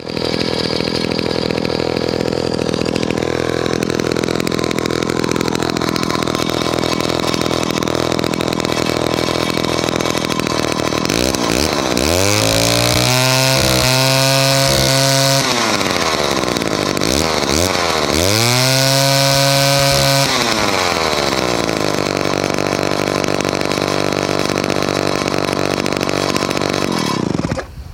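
Homelite C-51 chainsaw's 77 cc two-stroke engine idling, revved up to high speed twice and dropping back to idle, then shut off near the end. It runs fairly well on a freshly rebuilt carburetor that still needs fine-tuning.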